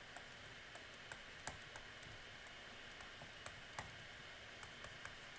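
Faint, irregular light clicks, about three a second at most, over a low steady hiss.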